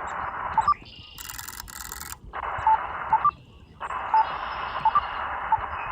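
Elecraft KX2 transceiver's receiver hiss on single sideband, band-limited static from its speaker while listening for replies to a CQ call, with a few short chirp-like tones. The static drops out briefly about a second in and again around the middle.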